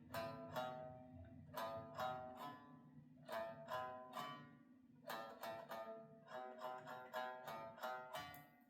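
A plucked string instrument played quietly: short groups of two or three plucked notes, each ringing and fading, with brief pauses between groups.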